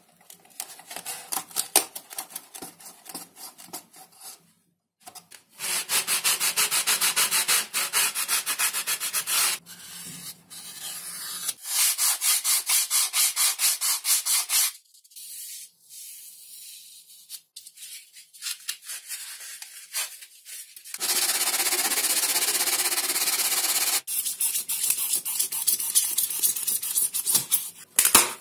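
Sandpaper being rubbed by hand over XPS foam in spells of rapid back-and-forth strokes, with short pauses between, and one steadier stretch of continuous rubbing.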